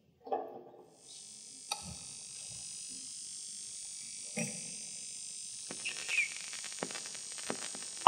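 Steady surface hiss of an old record starting to play on a horn gramophone, setting in about a second in, with scattered crackles and clicks and a couple of sharper knocks: the run-in before the recorded voice begins.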